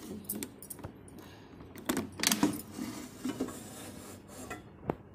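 Clicks and clatter of an air fryer's plastic handle and metal basket being handled and pulled out, loudest about two seconds in, with a sharp single click near the end.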